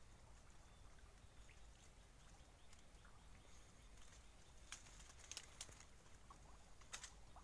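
Near silence with a low hum, broken by a few faint clicks and taps about two-thirds of the way in and once more near the end.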